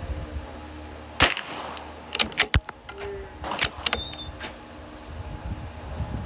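Rifle shots on a firing range: about half a dozen sharp cracks at irregular spacing, some only a fraction of a second apart, as from more than one gun. A low wind rumble on the microphone runs underneath.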